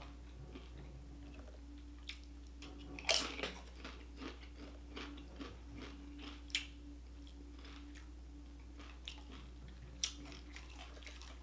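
Close-miked crunching of a tortilla chip being eaten: one sharp crisp bite about three seconds in, then a run of smaller crunches as it is chewed. A faint steady hum lies under it.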